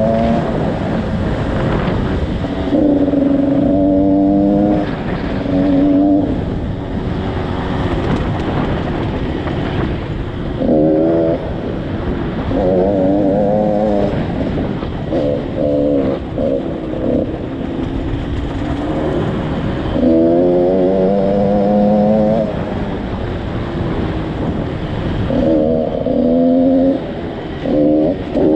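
2014 KTM 85 SX two-stroke dirt bike engine under way on a dirt trail, its note coming in bursts of a second or two as the throttle is opened and closed, wavering in pitch over the rough ground. A steady rush of wind on the microphone runs underneath.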